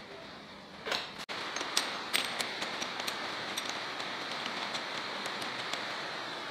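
A steel threaded screw with a plastic knob being turned by hand into a tapped steel block: a knock about a second in, then a scatter of light metallic ticks and taps that thin out, over a steady hiss.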